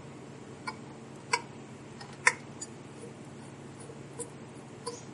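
Scattered small metal clicks and taps of a screwdriver and screws as the last two screws holding the recorder's pressure system are taken out. There are about half a dozen irregular clicks, one sharper than the rest a little past two seconds in, over a steady low hum.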